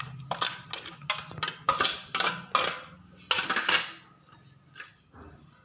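A utensil scraping against a dish in about a dozen quick strokes, stopping about four seconds in: sliced onions being scraped from a plate into a bowl of flour.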